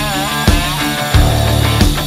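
Background rock music with a steady drum beat, about one and a half beats a second.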